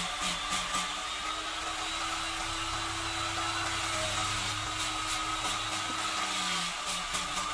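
Angle grinder with a sanding disc running steadily while it sands carved kemuning wood. Passes of the disc over the wood give a quick, rhythmic rasping in the first second and again through the second half.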